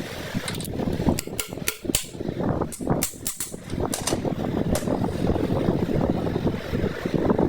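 About a dozen sharp clicks and taps at an irregular pace during the first five seconds, over a steady low rumble.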